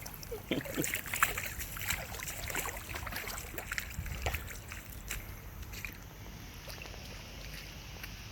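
Water splashing and sloshing, with many small sharp taps over a low rumble, busiest in the first half.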